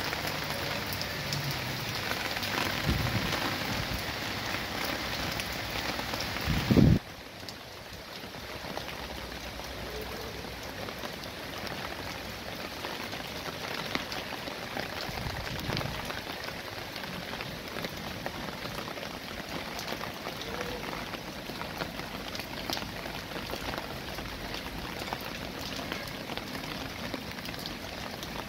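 Steady rain falling, an even hiss of drops. A loud low thump comes about seven seconds in, and straight after it the rain sounds quieter and duller for the rest of the stretch.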